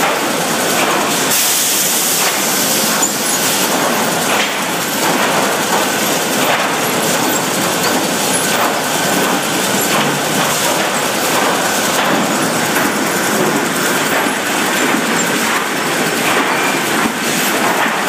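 Lumber chain conveyor running, its chains and the boards riding on it rattling steadily with many small clicks. A brief high hiss comes about a second in.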